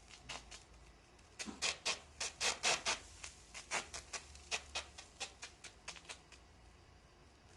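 A run of short rubbing or scraping strokes, about two to three a second, loudest about two seconds in and fainter after.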